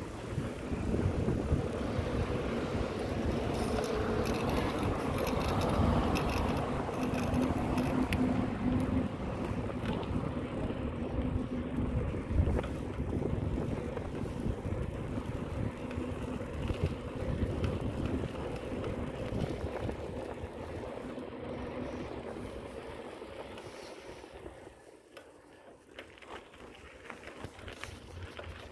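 Wind rushing over the microphone of a camera carried on a moving bicycle, with a low rumble of tyres on asphalt and a faint steady hum. It dies down for a few seconds near the end as the bike slows, then picks up again.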